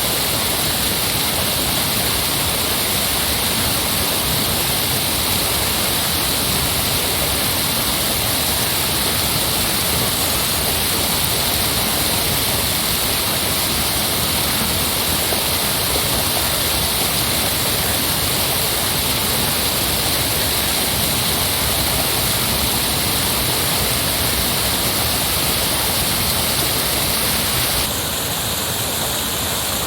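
Heavy flowing water, a steady, even rush with no separate splashes; near the end it shifts slightly and becomes a little quieter.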